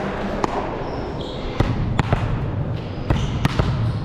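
Indoor volleyball play: about six or seven sharp knocks of the ball being struck and of feet hitting the court, with a few short squeaks of shoes on the gym floor over a low rumble of movement.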